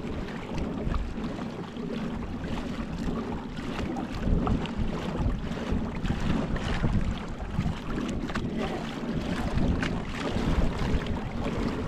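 Wind buffeting the microphone with water slapping against a kayak, a steady low rumble broken by many small sharp knocks and splashes.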